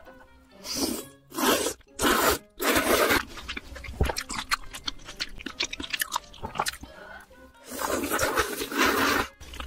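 Close-miked slurping of thick noodles from a spicy seafood hot pot: four quick slurps in the first three seconds and one longer slurp near the end, with wet chewing clicks in between.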